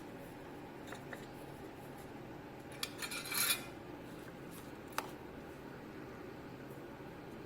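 Small objects being handled on a workbench: a few light clicks, a brief scraping rattle about three seconds in, and a sharp click about five seconds in, over a faint steady hum.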